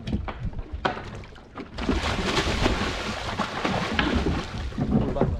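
A few knocks, then loud splashing and churning water around a longline float from about two seconds in, as a hooked fish thrashes at the surface.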